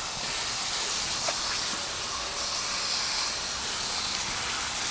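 Steady hiss of water spraying from a garden-hose nozzle onto an air-conditioner condenser coil, rinsing it clean.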